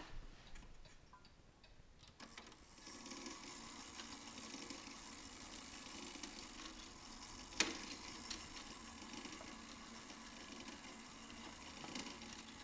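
Black Forest dumpling-eater automaton clock's drive movement running, a faint steady mechanical noise that sets in a couple of seconds in, with a single sharp click about seven and a half seconds in.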